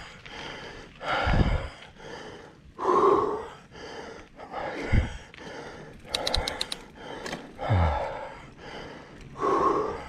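A mountain bike rider's heavy breathing while pedalling: loud gasping breaths about every one and a half seconds, some ending in a low falling grunt. A quick run of sharp clicks about six seconds in.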